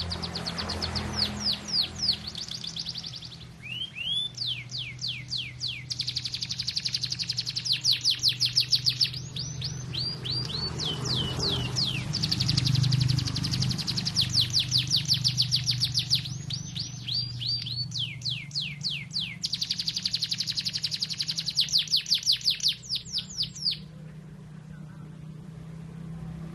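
Domestic canary singing long, fast rattling trills of rapidly repeated high chirps in the manner of a lovebird's 'ngekek' trill, several runs with short breaks between them, stopping near the end. A steady low hum runs underneath.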